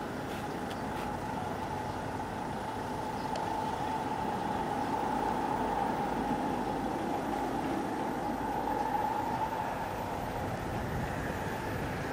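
KingTech K80E turbine of an RC model jet running while the jet taxis, a steady rushing hiss with a whine that grows louder as the jet passes close about halfway through, then eases.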